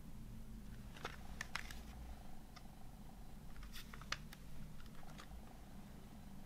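Plastic CD jewel case handled and turned over in the hands, giving light clicks and taps of the plastic: a cluster about a second in and another around four seconds in. A low steady hum runs underneath.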